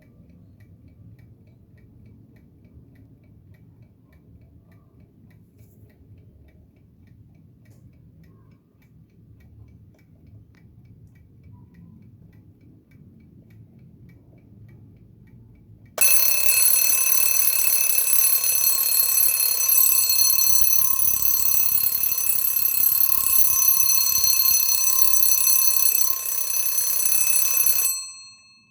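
Antique Kienzle alarm clock ticking faintly, then a little past halfway its alarm bell goes off. The ring is a very loud, continuous ringing of several steady tones that stops suddenly near the end.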